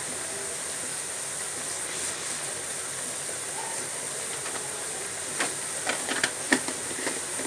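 Chicken, potatoes and milk sauce simmering in a pot with a steady hiss. From about five seconds in, a spoon clinks and knocks against the pot several times.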